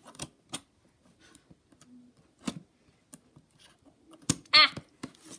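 Scissors snipping at tape on a cardboard toy box: a few separate sharp clicks spread out, the sharpest just after four seconds in.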